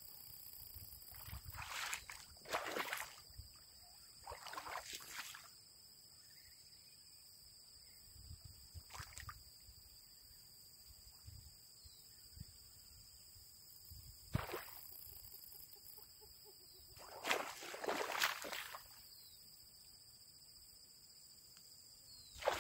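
Splashing and sloshing in shallow marsh water, in several separate bursts a second or two long, from a wading angler's boots and a hooked tararira thrashing at the surface while it is played on a rod. A single sharp click about halfway through.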